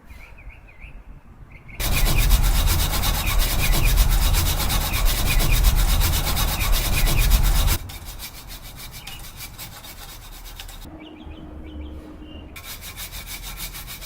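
Racing chainsaw (hot saw) running at full revs and cutting through a log for about six seconds, then dropping to a much quieter run. Faint bird chirps come before the cut.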